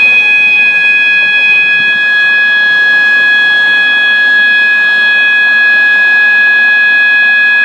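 System Sensor MA/SS-24 fire alarm horn sounding a continuous, unbroken steady 800 Hz tone, loud and unchanging: the building's fire alarm system is in alarm.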